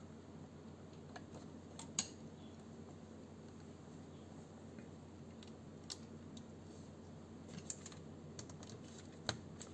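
Faint, scattered clicks and taps of hands and a tool working on an airsoft rifle's parts during disassembly, with one sharper click about two seconds in and a few more near the end.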